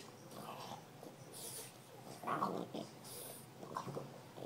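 French bulldog breathing noisily and chewing a rubber flip-flop, in short irregular bursts, the loudest a little past two seconds in.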